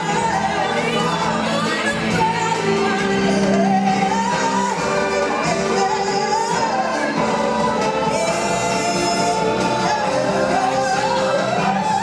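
Music with a choir singing: a sung melody rising and falling over held chords, with no break.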